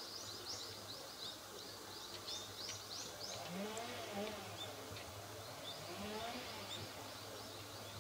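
Small birds chirping: quick runs of short high chirps for the first three seconds or so, then only now and then. Underneath are a faint steady low hum and, twice, faint low tones that rise and fall.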